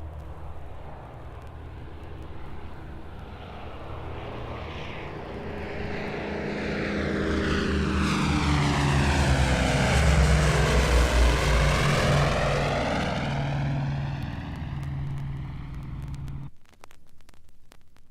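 Four-engine propeller bomber passing overhead, recorded as a stereo sound effect. Its engine drone swells to a peak around ten seconds in, then eases away and cuts off abruptly near the end, leaving the clicks and crackle of the vinyl's surface.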